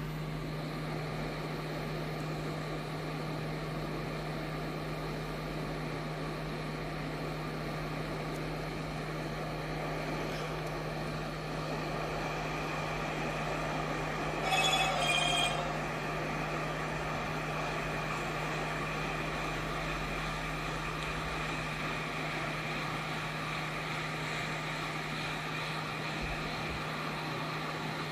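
Hot air rework station blowing steadily over a Nintendo Switch's P13USB USB-C controller chip to reflow its solder, with a steady low hum underneath. A short ringing electronic tone sounds about halfway through.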